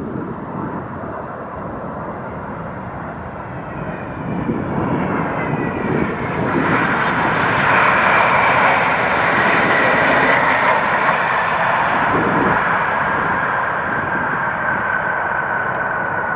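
Jet airliner passing close by: the engine noise swells to its loudest about halfway through, then eases off while the engine whine slides down in pitch as the plane moves away.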